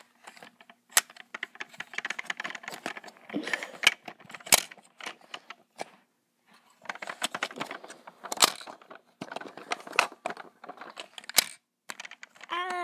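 Close handling noise: irregular clicks, scrapes and rattles of small plastic toys and the recording device being moved about, with a short break in the middle.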